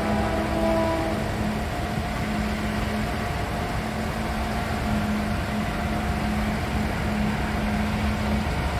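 An engine idling with a steady low rumble and a hum that comes and goes, with a few brief tones in the first second; railroad construction machinery is the likeliest source.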